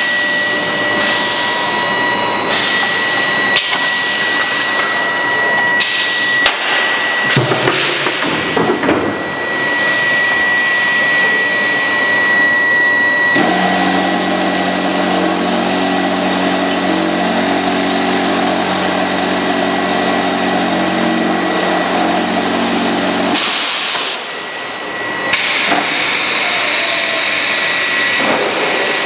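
Continuous industrial machinery noise from a grinding-ball production line, a steady hiss with a thin high tone, changing abruptly several times. For about ten seconds in the middle a low machine hum with several steady tones joins it.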